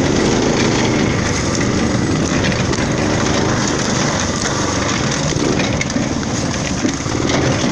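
Small engine of a belt-drive off-road go-kart running steadily while it is driven over rough, leaf-littered woodland ground, with frequent knocks and crackles from the bumpy ride.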